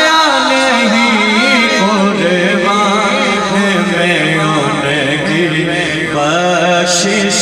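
A male naat reciter singing a long, drawn-out melismatic line into a microphone, the pitch bending and wavering on held vowels.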